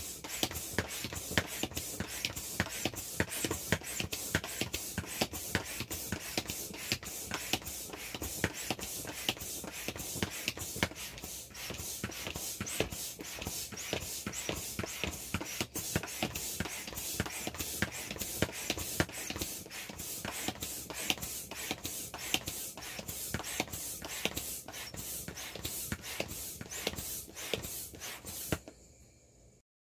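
Hand air pump worked in quick, even strokes, about three a second, pushing air through a hose into a vinyl inflatable toy as it fills. The pumping stops about a second before the end.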